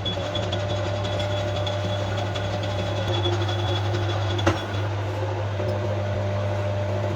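Steady low machine hum with a thin high whine, and a single sharp knock a little past the middle.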